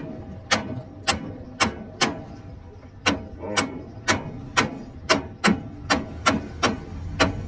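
Hammer striking metal in a run of sharp, evenly spaced blows, about two a second, each ringing briefly, with a short pause about two seconds in.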